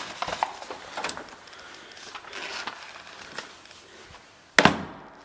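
Light clicks and rustling handling noises, then one loud sharp knock about four and a half seconds in, ringing briefly in a small room.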